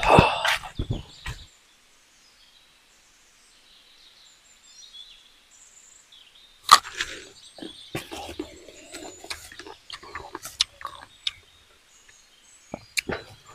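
Leaves and dry leaf litter rustling and crackling as they are handled, stopping after about a second and a half. Faint bird chirps follow in a quiet stretch. About seven seconds in comes a sharp click, then scattered clicks and rustling as the leaves are handled again.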